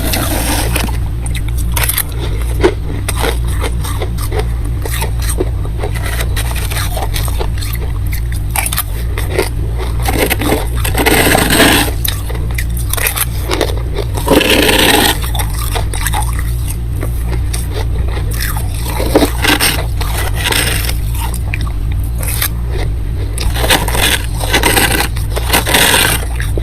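Thick freezer frost being scraped, with irregular crunchy, crackling scrapes and clicks and a few longer, louder scrapes around the middle. A steady low hum runs underneath.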